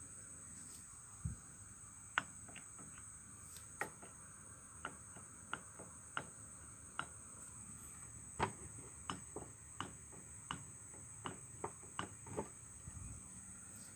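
Aftermarket Choho clutch housing on a Yamaha RX-King engine clicking as it is rocked by hand on its shaft: a run of irregular sharp clicks, coming faster in the second half. The clicks come from its in-and-out play of about 0.5 mm, where an original housing fits snugly.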